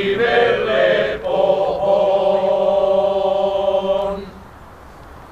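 A group of voices singing a song in Finnish, ending on a long held note that cuts off about four seconds in.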